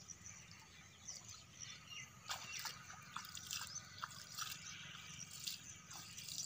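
Faint, irregular light splashes and drips of shallow pond water, stirred by hand and a small net, coming more often from about two seconds in.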